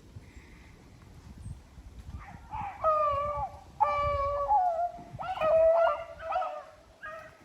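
Rabbit hounds baying: a run of long, wavering howls starting about two seconds in, with several dogs' voices overlapping in the middle, as the pack gives voice while running a rabbit.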